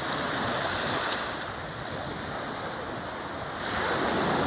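Sea waves washing onto the beach, a wave swelling louder near the end.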